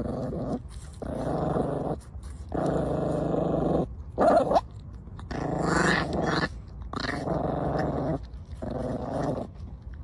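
Puppy growling while biting into an apple, in about six bouts with short pauses between them, and one short higher cry about four seconds in.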